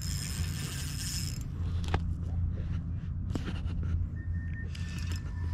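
Okuma ITX-1000 spinning reel whirring as a hooked fish is played on a bent light rod: a spell of whirring in the first second and a half, a few sharp ticks, then another short spell near the end, over a steady low rumble.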